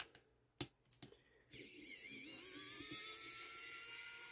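Pen-style electric precision screwdriver whirring for about three seconds as it backs a small screw out of a headphone earcup, its pitch rising slightly and then dropping as it stops near the end. A few light clicks of the bit seating in the screw head come first.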